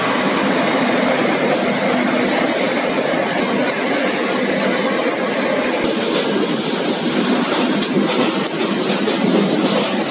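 Potato brush-roller washing and peeling machine running, with potatoes tumbling and rattling over the brush rollers in a steady, loud mechanical clatter. About six seconds in the sound changes abruptly, at a cut to the potato sorting conveyor running.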